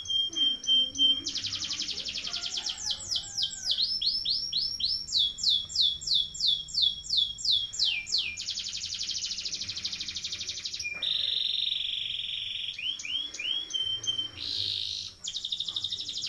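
Domestic canary singing a long rolling song: fast trilled rolls alternate with runs of repeated down-slurred notes, about three or four a second, and a steady held whistle a little past the middle.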